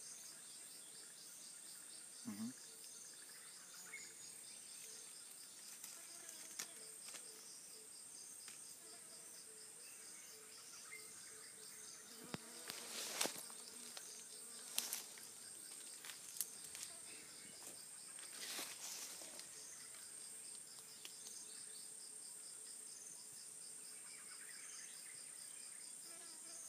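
Steady high-pitched insect chorus: one continuous trill with a faster pulsing chirp beneath it. A few sharp clicks and rustles come around the middle.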